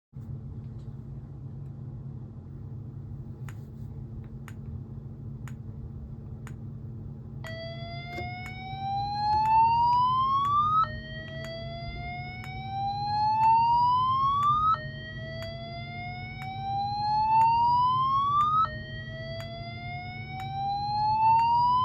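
EST Genesis G1R-S7VM speaker strobe playing a slow whoop tone. From about seven seconds in it sounds four rising sweeps, each climbing for about three and a half seconds and then cutting off and starting low again. Under it is a steady hum and faint ticks about once a second from the strobe flashing.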